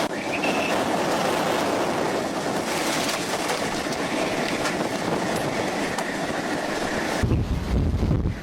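Tornado wind rushing around a storm-chasing vehicle, a loud, steady, dense rush. About seven seconds in it suddenly turns into a heavy, low buffeting of wind against the microphone.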